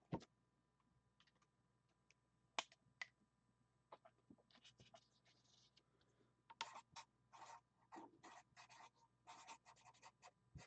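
Near silence with a few faint clicks, then a run of soft ticks and light scratching in the second half.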